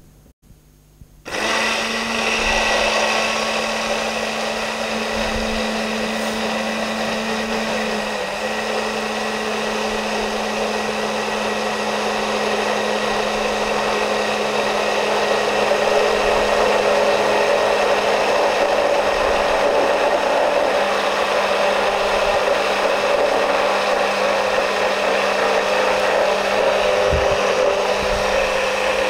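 A Braun stick blender starts about a second in and runs steadily in a tall beaker, whipping egg, olive oil, lemon and salt into mayonnaise. It gets slightly louder midway as the sauce thickens.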